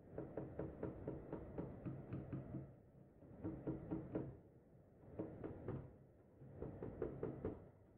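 A hand tool working a clamped wooden board, in four runs of quick strokes at about seven a second, the first run the longest.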